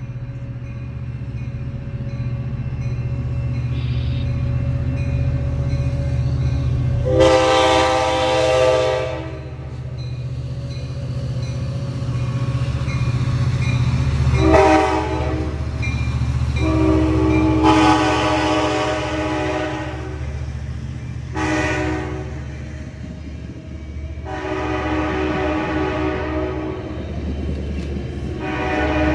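Sounder commuter train with an EMD F59PHI diesel locomotive passing close by, sounding its horn in five or six blasts, some long and some short, starting about seven seconds in. A steady low diesel rumble runs underneath.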